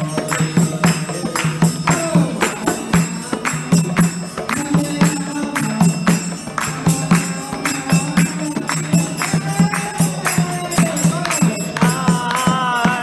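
Harmonium playing a devotional kirtan tune with held notes, while jingling metal percussion keeps a steady beat; a voice sings along, most clearly near the end.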